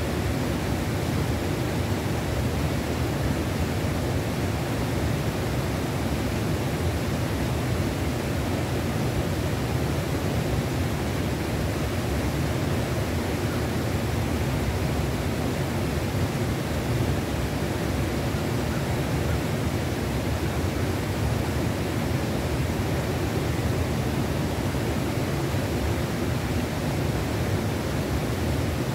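Steady rush of a fast-flowing mountain river, an even, unbroken wash of water noise.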